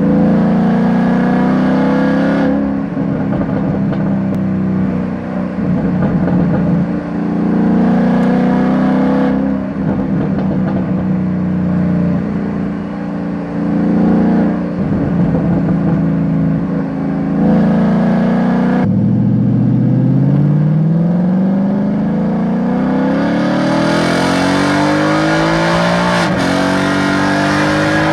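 2020 Ford Mustang GT's 5.0 L Coyote V8 through a Borla Switchfire exhaust, heard close to the tailpipes while driving. Stretches on throttle alternate with lift-offs that burble, pop and crackle on overrun. Near the end a long pull with steadily rising engine pitch is broken once by a gear change.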